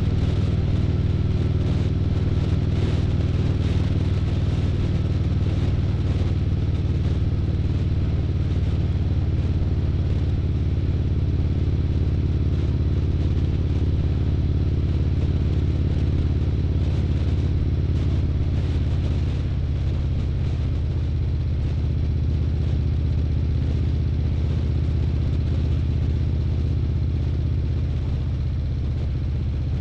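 Harley-Davidson Street Glide's V-twin engine running steadily at cruising speed, heard from the bike with a steady rush of wind. Its note drops slightly about two-thirds of the way through.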